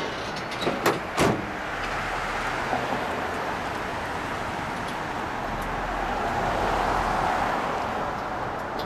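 Metal clicks and a knock as a car hood's prop rod is unhooked, then a louder clunk about a second in as the hood is lowered shut. After that comes a steady hiss of street traffic that swells for a couple of seconds.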